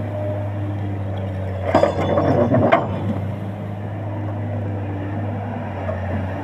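Komatsu excavator engine running steadily, with a burst of metallic clanking and clinking about two seconds in, lasting about a second.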